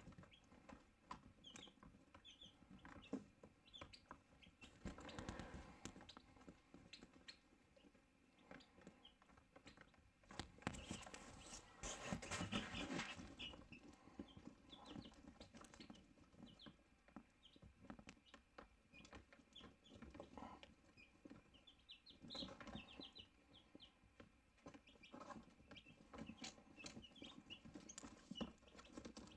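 Chicks and turkey poults peeping softly in short, high, scattered cheeps, with stretches of rustling as they move about, loudest about ten to thirteen seconds in.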